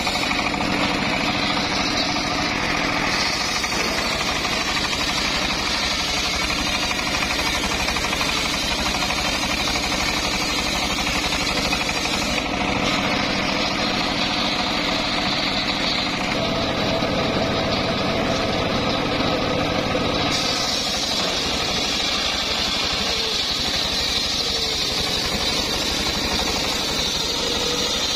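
Homemade engine-driven circular sawmill running steadily while its large blade rips lengthwise through a mahogany log. The cutting noise shifts several times as the blade's load changes.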